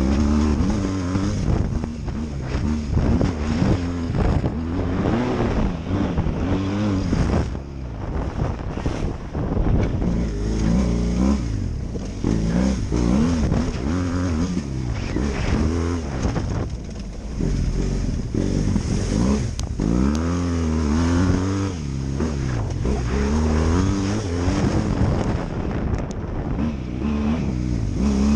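BMW F800GS parallel-twin motorcycle engine, ridden hard off-road, revving up and dropping back over and over as the throttle is opened and closed, over a constant rushing noise.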